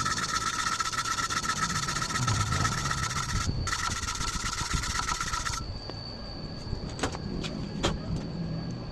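Electric arc welding on thin hollow iron tube: a steady crackling and hissing arc with a high whine, broken off once briefly about three and a half seconds in and struck again, then stopped after about five and a half seconds. A couple of sharp knocks follow near the end.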